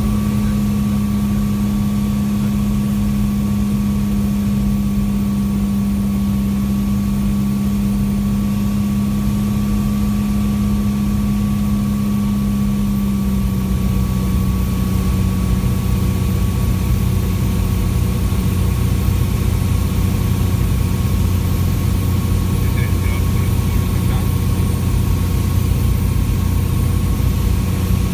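Steady drone of a Piper Turbo Arrow's turbocharged six-cylinder Continental engine and propeller, heard inside the cabin during the landing approach. The note drops slightly about halfway through as power comes back on final.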